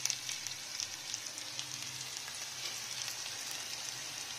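Chopped onions frying in a little oil in a kadai, a steady sizzle with small crackles, as they cook down toward reddish-brown.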